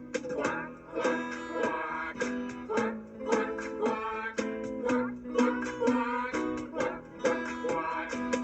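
Instrumental break in a children's song: a plucked string instrument like a ukulele or guitar playing a bouncy rhythm of quick notes, with a pitched melody line over it.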